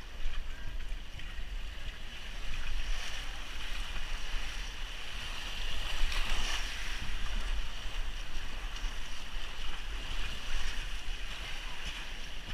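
Water rushing and splashing down an open waterslide flume as a rider slides through it, heard close up with wind rumbling on the microphone; a steady hiss that swells about halfway through.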